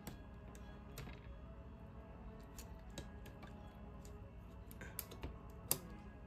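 Scattered small clicks and taps of a replacement trigger being pushed and worked into an airsoft rifle's gearbox, the trigger binding instead of seating. The sharpest click comes near the end.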